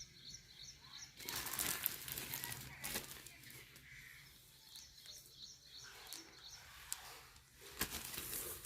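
Plastic packaging of a pack of baby pull-up diapers rustling and crinkling as it is handled, loudest from about one to three seconds in and again near the end.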